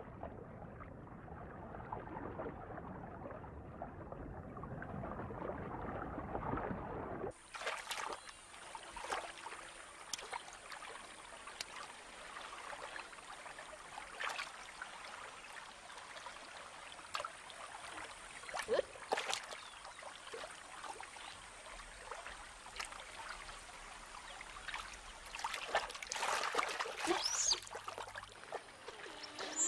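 Muffled underwater water noise for about the first seven seconds, then, after a sudden change, giant otters splashing in shallow water with water trickling and dripping, scattered small clicks and splashes, and a faint steady high whine behind.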